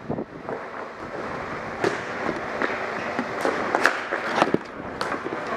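Ball hockey play: irregular sharp clacks of sticks and the ball on a hard court over a steady background hiss.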